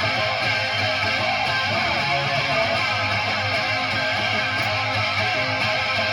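Electric guitar run through effects, playing a song's instrumental intro at a steady level.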